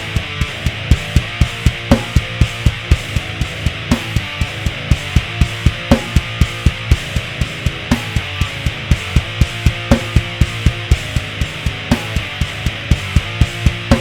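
Rock music with electric guitar over a fast, steady drum beat of about four hits a second.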